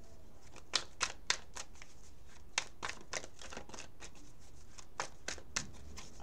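A deck of tarot cards being handled and shuffled by hand: irregular crisp card snaps and slaps, several in quick clusters.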